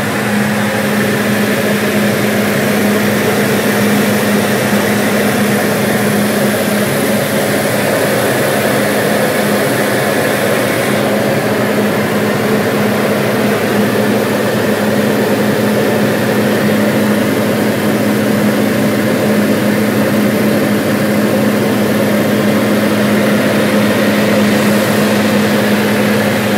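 Diamond DA40 single-engine light aircraft in cruise, heard from inside the cabin: a steady engine and propeller drone with a strong low hum and airflow hiss above it.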